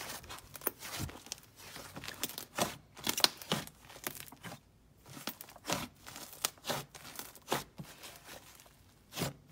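Soft clay slime squished, kneaded and stretched apart by hand, making sticky clicks and pops at an irregular pace, with a short lull about halfway through.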